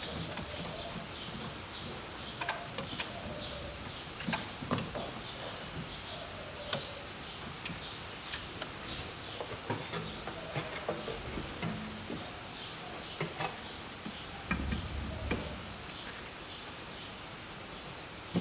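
Scattered clicks and light knocks of hands working on hoses and connectors in a car's engine bay, with a few duller thumps a little before the end. A steady run of short high chirps repeats about twice a second in the background.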